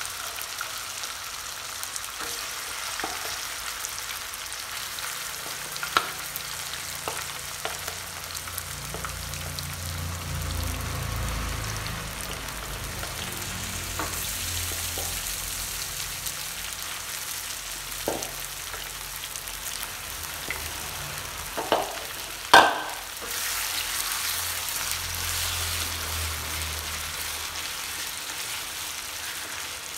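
Marinated chicken pieces shallow-frying in a little hot oil, a steady sizzle, with a few sharp clicks and one loud knock about three-quarters of the way through.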